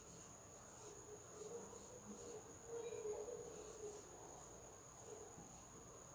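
Quiet room with soft squeaks and scratches of a felt-tip marker writing on a whiteboard, strongest about three seconds in. Under them runs a faint steady high-pitched trill like a cricket.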